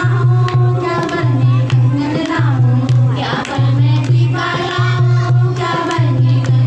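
Group of voices singing a banna geet, a North Indian wedding folk song, over a low note that pulses about once a second.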